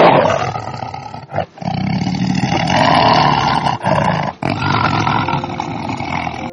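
A large animal roaring in long, rough calls. There are short breaks about a second and a half in and again around four seconds in.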